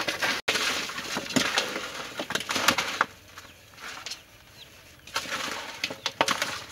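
A pile of raw chicken feet being rubbed and turned over by hands in a large aluminium basin: a busy clatter of light knocks and rustling as the feet tumble against each other and the metal, easing off for a moment about halfway through.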